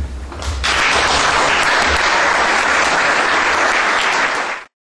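Audience applauding, starting about half a second in and cutting off abruptly near the end.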